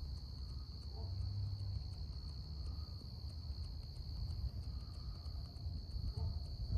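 Night insects keep up a steady, high-pitched chorus without a break, with a low rumble underneath.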